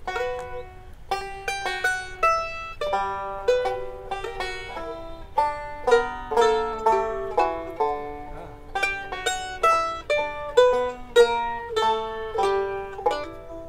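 Banjo and mandolin playing a bluegrass tune together, a quick, unbroken run of plucked notes.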